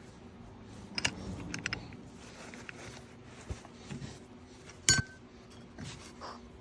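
Small metal parts and tools clinking and knocking on a work surface during a power steering pump rebuild. There are a few scattered clicks, and the loudest is a sharp metallic clink about five seconds in that rings briefly.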